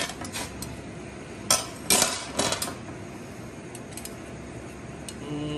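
Metal clinks and clatter from a tandoor's wire grill rack and a metal tray being handled, with a longer scraping clatter about two seconds in and a few lighter ticks after.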